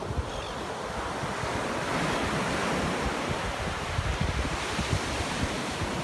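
Sea surf washing onto a sandy beach, swelling about two seconds in, with wind buffeting the microphone in low gusts.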